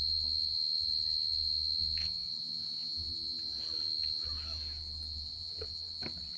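A steady high-pitched whine on one unchanging tone, with an uneven low rumble underneath and a few faint clicks.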